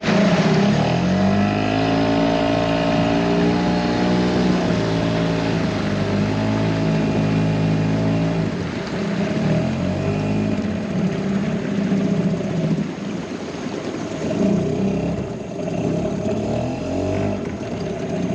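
An engine running, its pitch rising and falling as the throttle changes, somewhat lower after about eight seconds.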